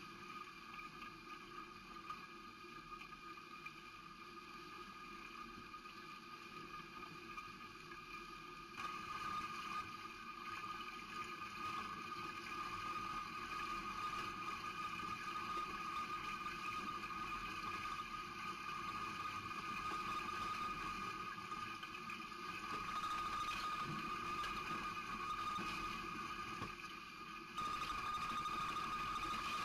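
Floodwater rushing and churning past the camera, with a steady high whine running underneath. The sound steps up louder twice, about nine seconds in and again near the end.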